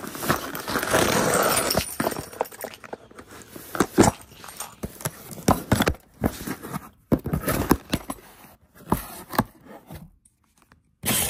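Cardboard box and plastic packaging being handled: rustling and crinkling at first, then a run of sharp knocks, taps and scrapes as the flaps are pushed open and the bagged items inside are moved about.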